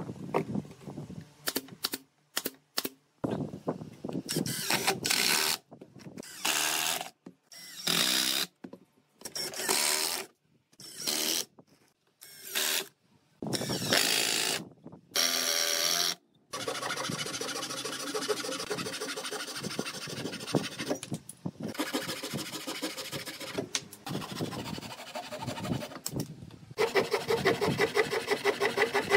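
A cordless drill driving screws into a pine armrest in a series of short trigger bursts, each whirring up and stopping. From about halfway through, a handsaw cuts wood in continuous strokes, growing louder near the end.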